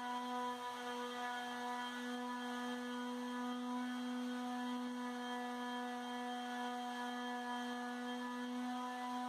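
Electric orbital finishing sander running with a steady, even hum, sanding down the grey pigmented texture coat on a wall with worn 150-grit sandpaper.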